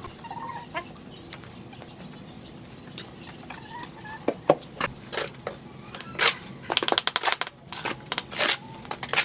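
Cement mortar being worked by hand: scattered scrapes and knocks from the shovel and bucket, then a quick run of scraping and clinking near the end as clay bricks are pressed and tapped into the wet mortar.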